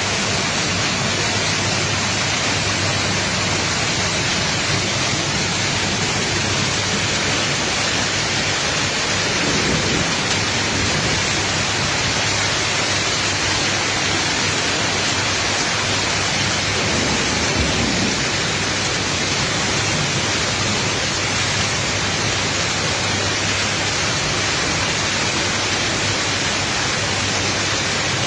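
Heavy rain pouring down steadily in a cloudburst, a dense even hiss with no let-up.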